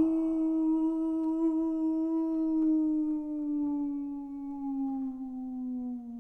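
A man's voice howling like a wolf into the microphone: one long held note that sags slowly in pitch and fades gently.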